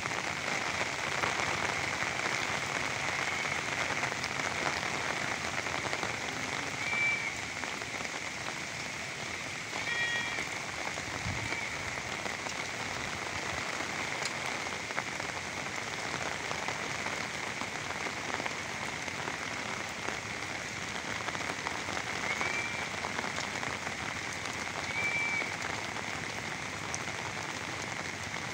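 Steady rain falling on a pond's surface, a constant even hiss of drops hitting water.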